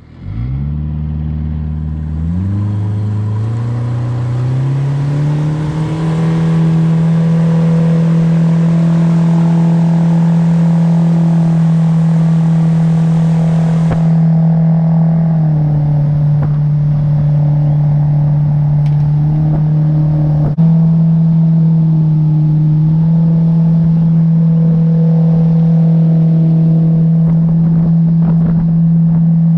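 Boat's outboard motor starting and throttling up, its pitch climbing in steps over the first several seconds, then running steadily at speed, dipping briefly in pitch twice.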